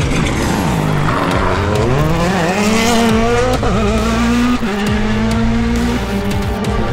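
Rally car engine revving hard on a stage. The pitch dips about a second in, then climbs through quick gear changes and holds at high revs.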